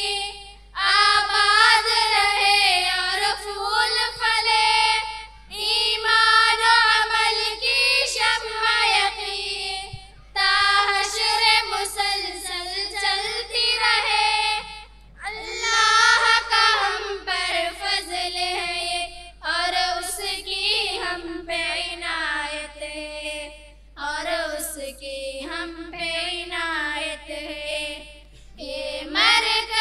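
Three girls singing a song together into a microphone, unaccompanied, in sung phrases of a few seconds with short breaks for breath between them.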